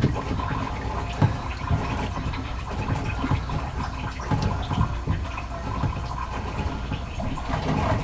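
Water draining out of a loosened whole-house water filter canister into a bucket, with a few knocks as the housing is handled.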